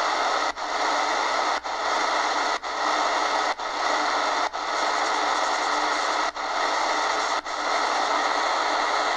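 Shortwave band noise from an Eton Grundig Executive Satellit portable radio's speaker, a steady hiss with no station, while the radio is tuned in AM mode slowly up through the bottom of the 80-metre ham band. The hiss cuts out for an instant about once a second, seven times, as the radio is stepped from one frequency to the next.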